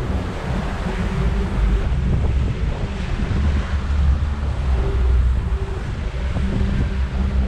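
Wind buffeting the camera's microphone in a loud, uneven low rumble, with surf washing on the beach behind it.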